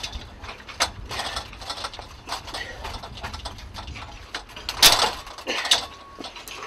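Steel retractable lattice window grille rattling and clanking as it is pulled and kicked at by hand and boot in a forced-entry attack, with irregular metallic knocks and one loud clank about five seconds in.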